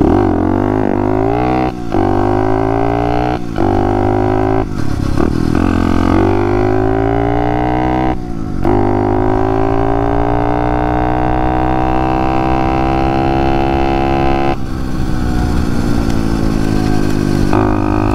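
110cc pit bike engine fitted with a racing carburetor, pulling hard under acceleration. Its pitch climbs, drops briefly at each of several gear shifts and climbs again, with one long pull in a higher gear in the middle.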